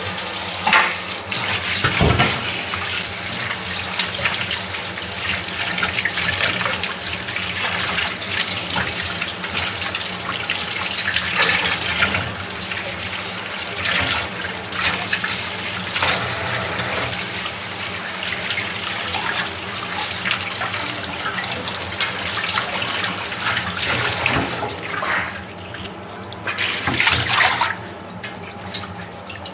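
Kitchen tap running into a stainless steel sink while long vegetable stems are rinsed by hand under the stream, water splashing off the stems and the steel. The flow eases near the end.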